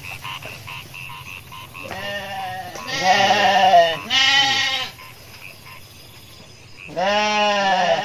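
Lambs bleating four times: a short bleat about two seconds in, two longer, louder quavering bleats just after, and another starting near the end.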